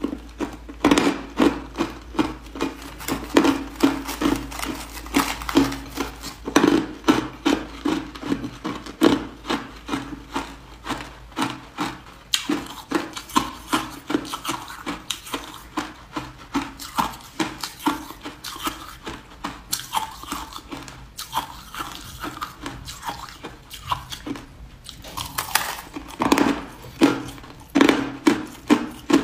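A person chewing hard ice, a quick run of sharp crunches about three a second, with a couple of short pauses.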